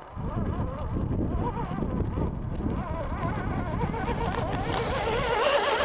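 Small radio-controlled 4x4 truck driving over loose gravel close by, its tyres crunching and grinding on the stones. A wavering higher tone sits above it and grows louder near the end.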